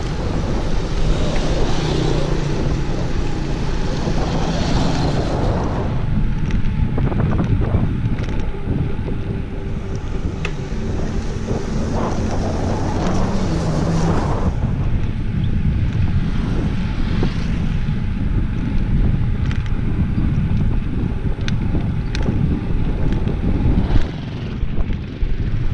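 Wind buffeting the microphone of a camera on a moving bicycle, a steady heavy rumble, with road and tyre noise underneath.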